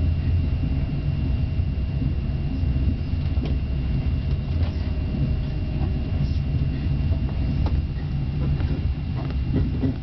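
Amtrak Cascades passenger train running, heard from inside the coach as a steady low rumble. A faint steady high tone sits over it, with a few light clicks.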